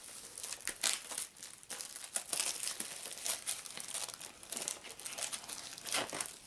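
Packaging of a trading-card booster box being opened and handled: many short, irregular crinkles and tearing rustles.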